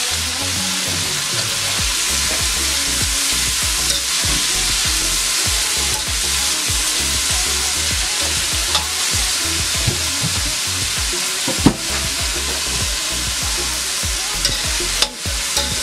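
Chopped bell peppers and onions sizzling as they sauté in avocado oil in a stainless steel pan, stirred with a utensil now and then. A single sharp tap sounds about twelve seconds in.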